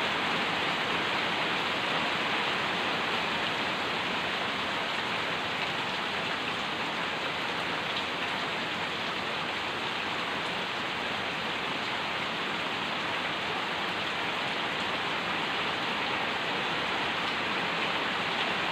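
Steady, even hiss with no distinct strikes, tones or voices in it.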